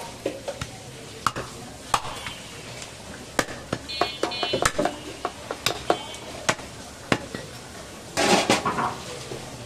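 Butcher's cleaver chopping through goat ribs and backbone on a wooden chopping block: an irregular run of sharp knocks, some in quick succession. A short noisy burst comes near the end.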